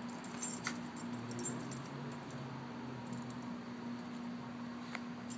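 Small dog's harness tags jingling lightly in a few short bursts as she moves about, over a steady low hum.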